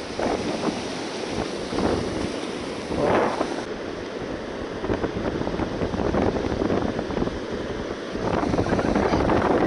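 Wind buffeting the microphone over the wash of breaking surf, gusting and louder near the end.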